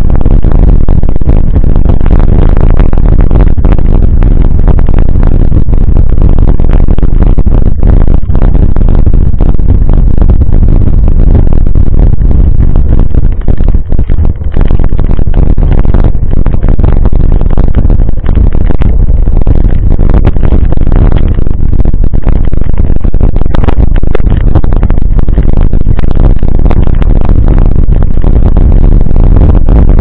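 Mountain bike ridden over a rough dirt and gravel track: a loud, continuous rumble with many small rattles and clatters, so loud that it overloads the recording.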